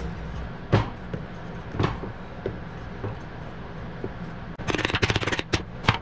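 Clicks and knocks of metal parts as a window air conditioner's fan motor is handled and fitted back together, with a few single knocks early on and a rapid rattling run of clicks near the end.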